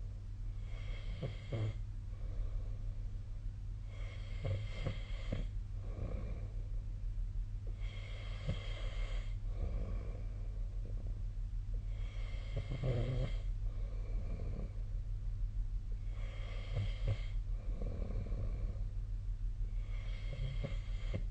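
A sleeping person snoring in a slow, regular rhythm, about one snore every four seconds, with quieter breaths between the snores. A steady low hum runs underneath.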